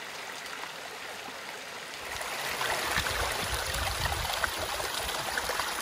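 Mountain creek water running over rocks, a steady rushing; it turns louder and fuller about two seconds in.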